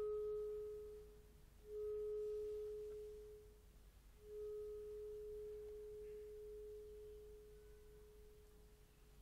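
Solo clarinet playing the same soft, pure note three times with short breaks between, the last held for about five seconds and fading away.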